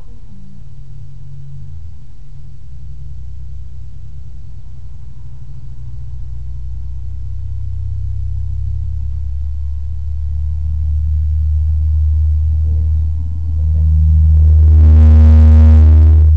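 A low engine rumble from a motor vehicle grows steadily louder. For the last two seconds or so it is topped by a steady drone with many overtones, and this is the loudest part.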